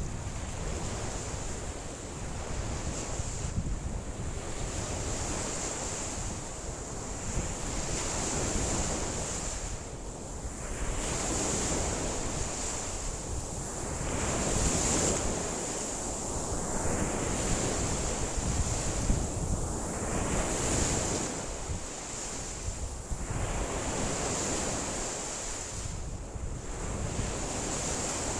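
Wind-driven lake waves washing in, a new surge about every three seconds, with strong wind buffeting the microphone in a steady low rumble.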